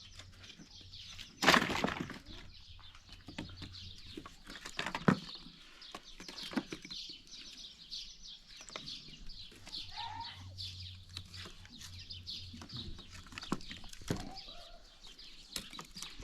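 Many small birds chirping steadily in quick, high chirps, with a loud knock about a second and a half in and another sharp knock about five seconds in.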